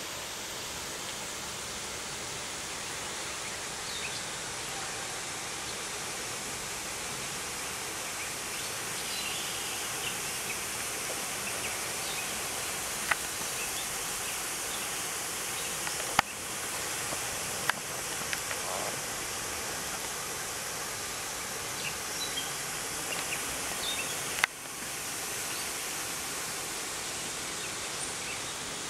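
Steady outdoor ambient hiss with faint scattered chirps, broken by a few sharp clicks in the middle.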